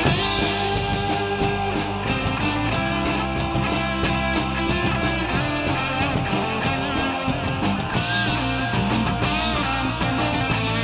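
Rock band playing live, with electric guitars over a drum kit.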